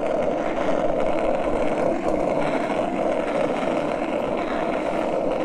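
Skateboard wheels rolling steadily over asphalt, a continuous loud rumbling rush with no breaks.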